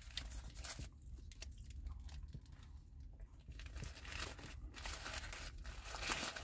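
Close-up chewing of a grilled chicken pita wrap, with soft clicks and crunches from the mouth, and its paper wrapper crinkling, more densely near the end.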